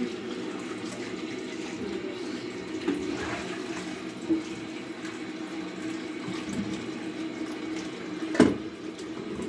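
Kitchen tap running steadily into the sink while a bowl with a piece of beef is rinsed under it, with small clinks of dishware and one sharp knock near the end.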